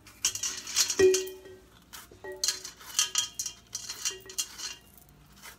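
A scoop tool scrapes the seeds and core out of a bell pepper in several scraping strokes. Twice, about a second in and again a little after two seconds, it knocks against a stainless steel bowl, which rings.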